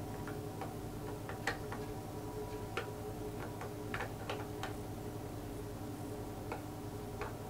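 Small metal camera parts clicking and tapping as a Ricohflex TLR lens assembly is threaded in and turned by hand. About a dozen short, irregular clicks sound over a faint steady hum.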